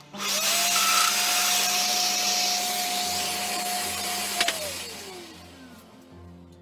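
Festool Domino loose-tenon joiner with a dust extractor hose attached: the motor starts with a rising whine, runs steadily with a hiss for about four seconds while plunging a mortise into a hardwood block, then a click and the motor winds down with a falling whine.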